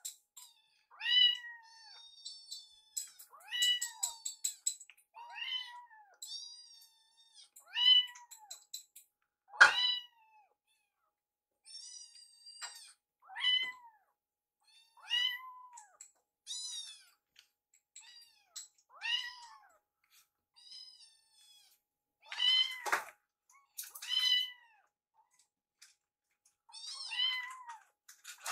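Kittens meowing over and over, a high-pitched call every second or two, each dropping in pitch at its end, with some thinner, higher mews mixed in; the kittens are begging to be fed.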